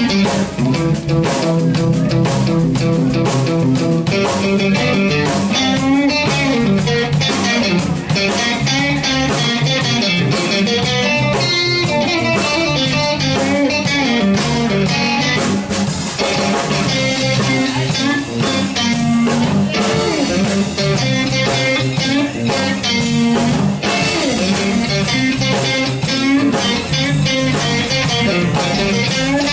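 Two electric guitars played live through amplifiers, a continuous loud jam of melodic lines over low accompanying notes.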